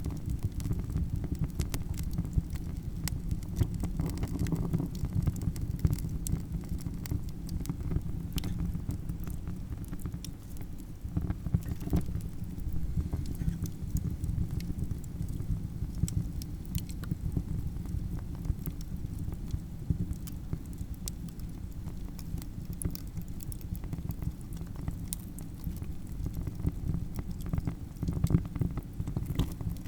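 Campfire crackling: frequent sharp pops and snaps at irregular intervals over a steady low rumble.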